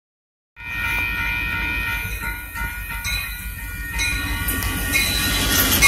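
Union Pacific diesel locomotive's multi-chime horn sounding one long blast over the low rumble of the engine. Near the end the train's noise grows louder as the locomotive reaches the crossing.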